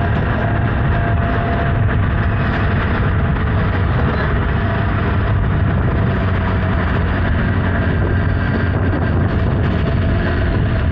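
Honda Hornet 900's inline-four engine running at a steady pace while riding, mixed with constant wind and road rush.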